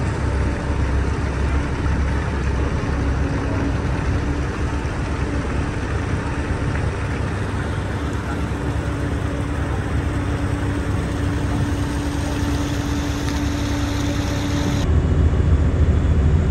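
Car ferry under way: its engine's steady low drone with a constant hum, over water rushing along the hull. About fifteen seconds in the sound changes suddenly to a louder, deeper rumble.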